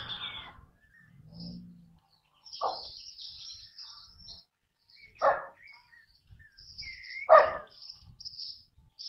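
Birds chirping, with a dog barking three times about two seconds apart; the third bark is the loudest.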